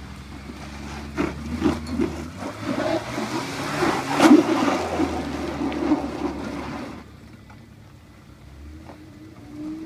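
Daihatsu Terios Kid's small three-cylinder engine working hard as the SUV climbs a steep muddy slope, with tyres scrabbling and kicking up mud and stones in a run of irregular clacks and one sharp knock a little past four seconds in. About seven seconds in the effort stops and the engine drops to a quieter idle.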